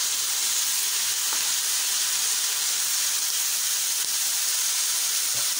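Chopped onion and capsicum with soy sauce sizzling steadily in hot oil in an iron kadhai, giving off a continuous steamy hiss.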